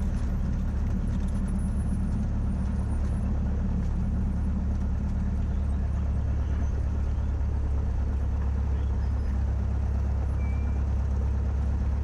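Cessna 172's piston engine and propeller running at low power, a steady low drone that holds the same pitch and level throughout.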